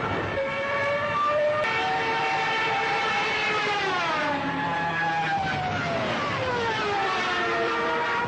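War sound effect: several droning tones overlap, each slowly sliding down in pitch over a few seconds, over a low steady rumble.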